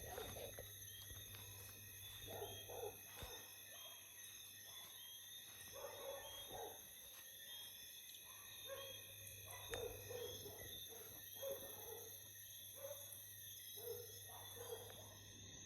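Night chorus: steady high-pitched insect trilling, with short low hoot-like animal calls repeating about once a second.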